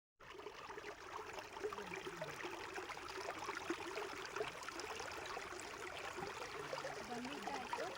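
A stream flowing, a steady babble of running water.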